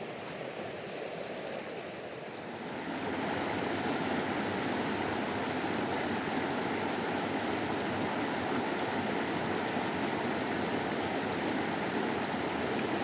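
River water flowing steadily over a shallow stream bed, a continuous rushing that grows louder about three seconds in.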